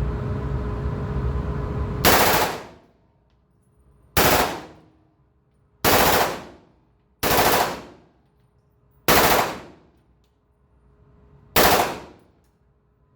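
A 9mm M4 Commando carbine firing six short fully automatic bursts, one every couple of seconds, each trailing off quickly after it stops.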